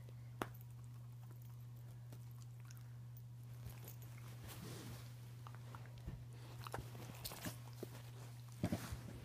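Small dog biting and mouthing a plush pillow-pet toy: scattered soft clicks and scuffles of teeth and paws on fabric, busier in the second half and loudest near the end. A steady low hum runs underneath.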